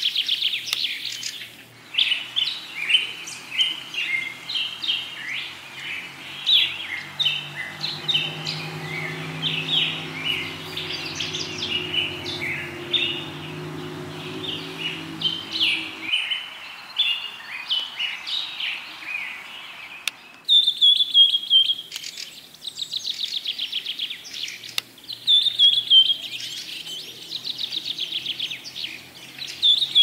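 Birds chirping in a dense, busy chorus of short high notes, with a low steady hum underneath through the middle. About twenty seconds in, the sound changes abruptly to repeated rapid trills that drop slightly in pitch.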